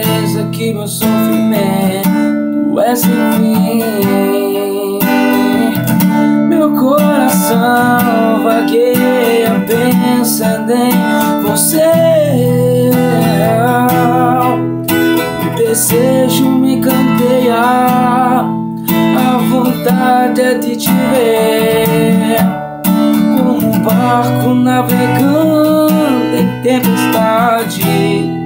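Acoustic guitar strummed in a steady rhythm while a man sings a melody over it.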